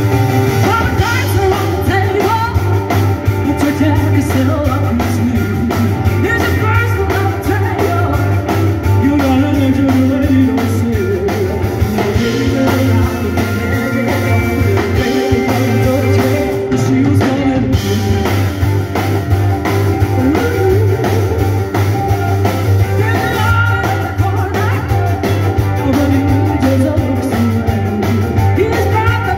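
Live blues-rock band playing loud: a woman singing lead over electric guitar, drums and keyboards, with a heavy, boomy bass.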